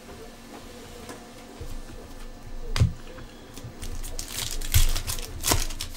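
Hands handling trading cards and a foil card pack: soft rustling with a sharp click about three seconds in, then louder crinkling of the pack's foil wrapper as it is opened, between about four and five and a half seconds in.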